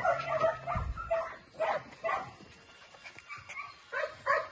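Dog giving short, high-pitched yips and barks in quick bursts, pausing briefly, then starting again near the end.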